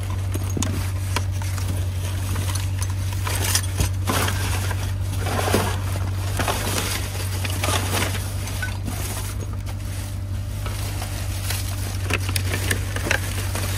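Rummaging through discarded goods in a dumpster: irregular rustling, light knocks and clatter of items and packaging being handled, over a steady low hum.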